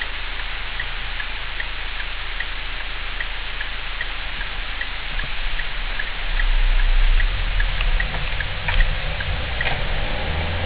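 Steady hiss inside a Citroen C4 Grand Picasso, with light, regular ticking that alternates between two pitches about two and a half times a second. A low rumble swells in about five seconds in.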